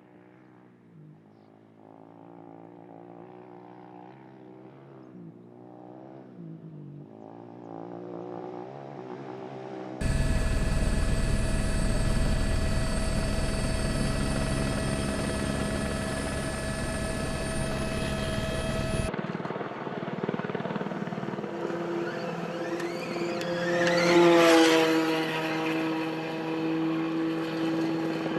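Rally vehicle engines across several abrupt cuts: an engine revving up and down, then a loud steady run at speed, then a vehicle passing close about three-quarters of the way through, its engine pitch dropping as it goes by.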